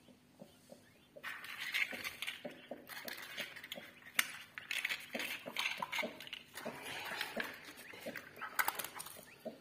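Poultry sounds: a broody hen's harsh, noisy clucking, with faint short rising peeps of newly hatched chicks. The clucking starts about a second in and goes on, broken by small clicks.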